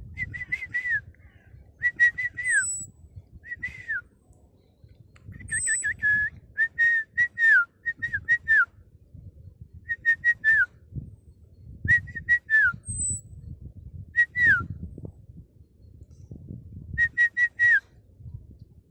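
A bird whistling a short phrase over and over: a few quick notes on one pitch ending in a downward slide, repeated about ten times with short gaps, with a few brief higher chirps between them.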